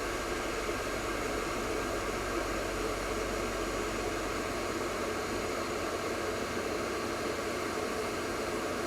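Electric kettle heating water, giving a steady rushing, bubbling hiss.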